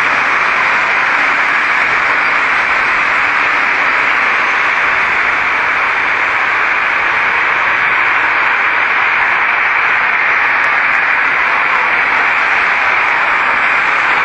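Steady, loud hiss-like noise that does not change, with no words heard.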